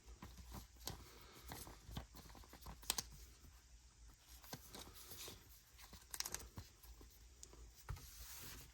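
Faint handling of Pokémon trading cards and foil booster-pack wrappers: scattered light clicks and brief crinkles, with a pair about three seconds in and a quick cluster a little after six seconds.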